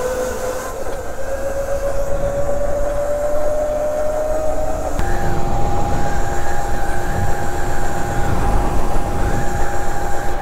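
Burromax electric mini bike's motor whining while riding. The whine rises steadily in pitch for about five seconds as the bike speeds up, then changes abruptly to a steady higher tone, over a rumble of wind and tyres that grows in the second half.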